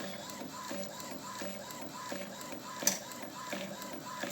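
Inkjet sublimation printer printing, its print head carriage moving back and forth in a quick, even rhythm of about three strokes a second. A sharp click comes about three seconds in.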